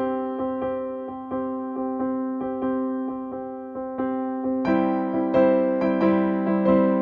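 Background keyboard music: a gentle piano-like melody with notes struck a few times a second over held chords, growing fuller and louder about two-thirds of the way through.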